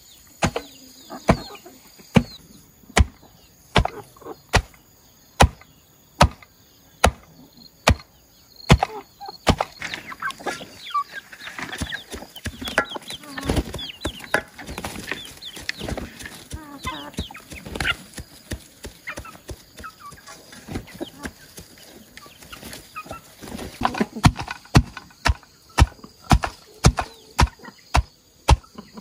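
Regular chopping knocks, about one every second at first and faster near the end, with chickens clucking and cheeping, thickest in the middle stretch where the knocks thin out.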